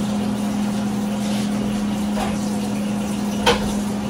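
Steady low hum of a running kitchen appliance, with a single sharp click about three and a half seconds in and a couple of faint knocks.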